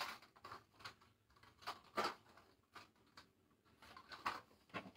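Faint, irregular clicks and rustles of hands rummaging among fishing lures and their plastic packaging, a light knock about two seconds in.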